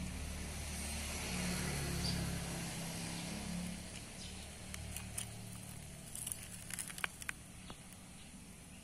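Low engine rumble, like a vehicle passing, fading after about four seconds. Then a quick run of light clicks and taps, the bamboo stick knocking against a drinking glass as a millipede is shaken off into it.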